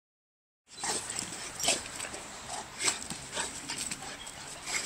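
Two Neapolitan mastiffs play-fighting, starting just under a second in. Their short, sharp noises come irregularly, every half second to a second.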